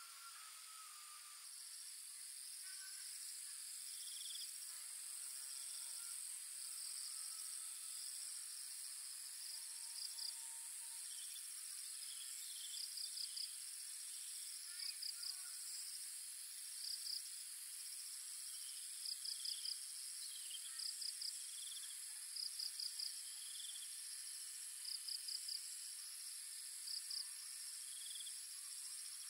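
Evening insect chorus: a steady high-pitched drone, with crickets chirping in short trains of three to five quick pulses every second or two.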